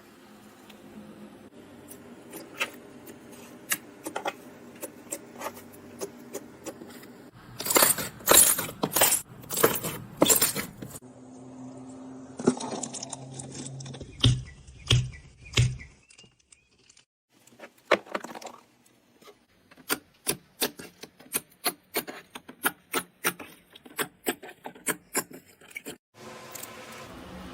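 Slime being handled in a series of short clips: scattered sharp clicks and crackles, a loud burst of crackling in the middle, and a fairly even run of sharp clicks, two or three a second, near the end.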